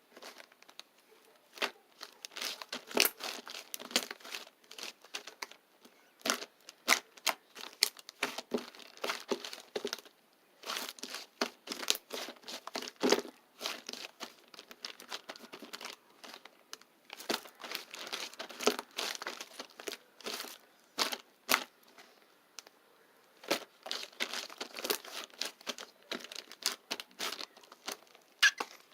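Crinkling and crackling handling noise in irregular bursts, with short pauses between them.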